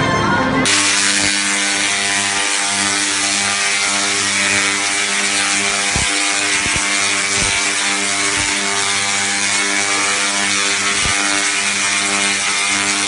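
Large Tesla coil firing electric arcs: a loud, harsh, steady electrical buzz with a crackling hiss. It starts abruptly about half a second in, as background music cuts off.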